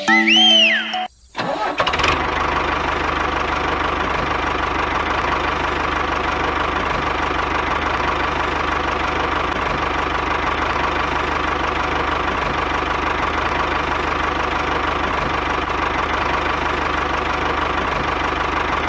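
An engine starts about two seconds in and then runs steadily at an even speed. A short gliding musical tone sounds just before it.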